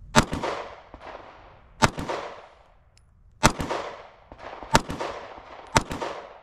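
Shadow Systems CR920P 9mm pistol fired five times at a slow, steady pace, about a second to a second and a half between shots, each shot followed by a trailing echo.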